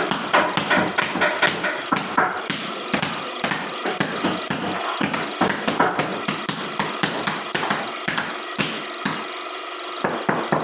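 Sharp taps and knocks of tool work on tiles, several a second and irregular, easing off briefly about nine seconds in.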